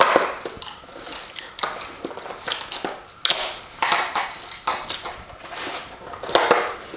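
A paperboard box being opened with a small cutter: irregular scrapes, taps and knocks as the tape is slit and the lid is worked loose on a granite countertop, with a longer scrape about three seconds in.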